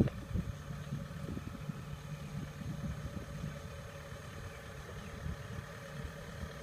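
Kubota tracked combine harvester's diesel engine running steadily as the machine drives along a field track, a low even hum.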